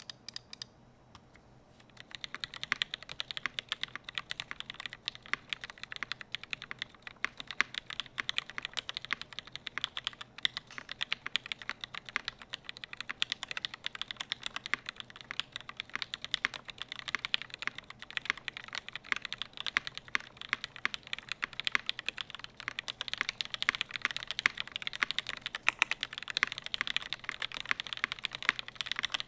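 Continuous fast typing on a UTD 360C tenkeyless keyboard with lubed, well-worn vintage Cherry MX Black linear switches in an aluminium top-mounted plate and GMK keycaps. It starts about two seconds in.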